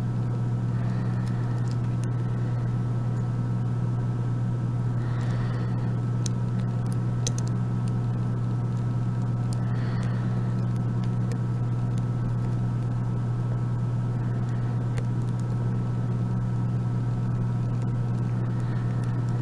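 A steady low hum runs throughout at an even level. A few faint light ticks come through it, a little over five seconds in and again about fifteen seconds in: a Sparrows pick working the pins of an Abus 34/55 padlock held under heavy tension.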